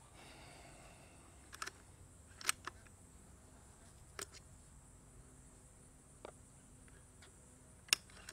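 Sharp mechanical clicks of an FX Wildcat MK2 Compact .25 PCP air rifle's side-lever action being cycled between shots, chambering the next pellet from the magazine. About six clicks come at uneven intervals, the loudest a pair about two and a half seconds in and a single one near the end.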